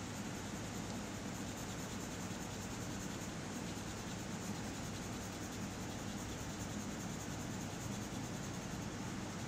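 Pink colored pencil scratching on paper while shading a drawing, over a steady background hiss.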